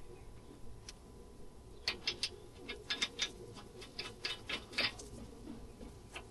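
An uneven run of about a dozen sharp clicks and ticks, starting about two seconds in and stopping near five seconds, over a low steady background.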